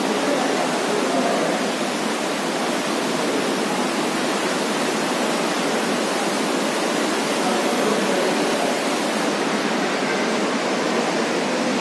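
A steady, loud rushing noise, even and unbroken.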